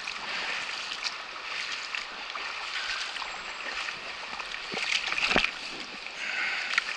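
Shallow stream flowing over rocks: a steady rush of running water, with a few sharp taps about five seconds in.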